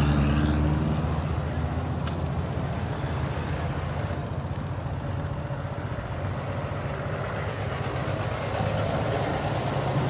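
Slow highway traffic with heavy trucks close by: a steady low engine rumble, loudest at the start and easing a little after a couple of seconds, with one brief click about two seconds in.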